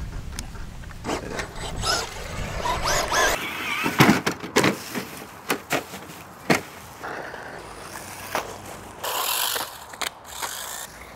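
Radio-controlled cars crashing and tumbling on dirt: a string of sharp knocks and clatters, most of them between about four and seven seconds in, with short bursts of scrabbling noise between them.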